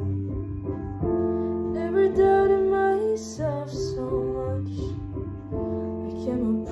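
A woman singing a slow pop ballad over piano accompaniment, the piano holding chords that change every second or so under the voice.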